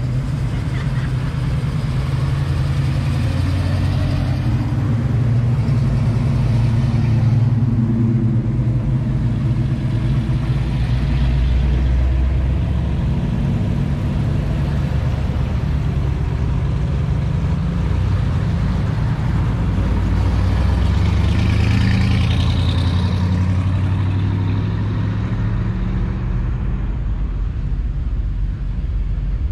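Classic cars and hot rods driving slowly past one after another, their engines running with a low, steady exhaust note that swells as each car goes by.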